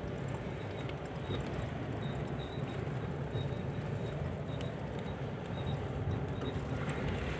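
A car driving, heard from inside the cabin: a steady low rumble of engine and road noise, with a faint irregular high ticking.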